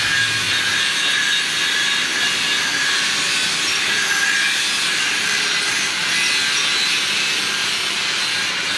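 Automatic vial sticker-labeling machine running: a steady mechanical whirr from its star wheel, feed worm and label rollers, with a faint steady tone.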